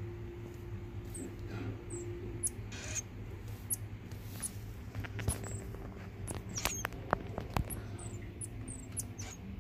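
Tiny, very high-pitched squeaks and chirps from baby animals, repeated irregularly, with a run of sharp clicks in the middle and a steady low hum underneath.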